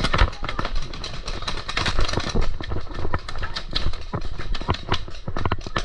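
Paintball markers firing: a dense, irregular run of sharp pops and knocks, several a second, mixed with footsteps and rustling through brush and a steady low rumble of wind and movement on the microphone.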